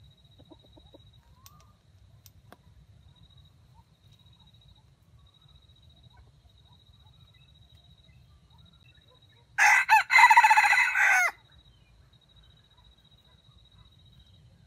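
Red junglefowl rooster crowing once, about two-thirds of the way in: a single loud crow under two seconds long that opens with a short broken note.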